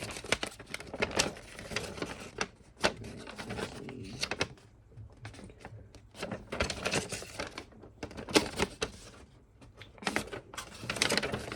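Paper rustling and irregular small clicks and knocks as an instruction booklet is handled and its pages are turned.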